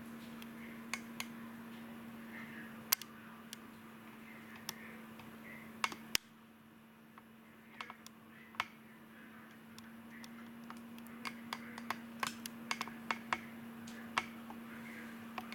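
Irregular sharp light clicks and taps, a few a second at most and thicker near the end, over a steady low hum.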